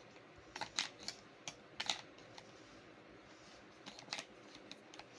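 Sharp plastic clicks and knocks as the sections of a battery weed trimmer are fitted and twisted together, a cluster in the first two seconds and a few more around four seconds in.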